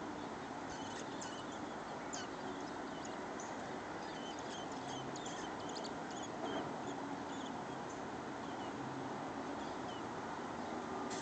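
Small birds chirping in short, high cheeps, many in quick succession in the first half and sparser later, over a steady background rumble.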